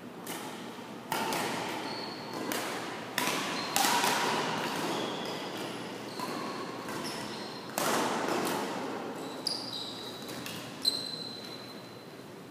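Badminton rackets striking a shuttlecock, several sharp hits that echo around a large gymnasium, with short high squeaks of sneakers on the court floor between them.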